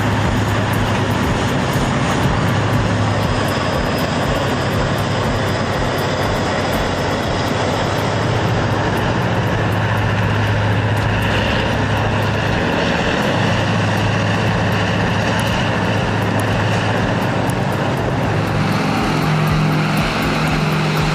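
Diesel-powered dragline's engine running under load, a deep, steady drone that sounds like a locomotive diesel. Its note dips briefly partway through and shifts higher near the end.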